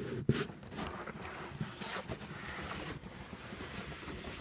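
A cardboard box being handled and opened, with a sharp click about a third of a second in and then soft scraping and rustling with scattered small knocks.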